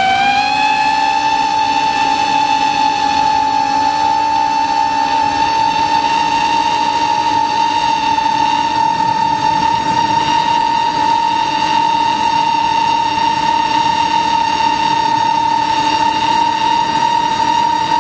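Motor and propeller of a radio-controlled aircraft, whining loudly at a steady high pitch. The pitch rises slightly in the first second, then holds level, with wind rush, as heard from the camera on board.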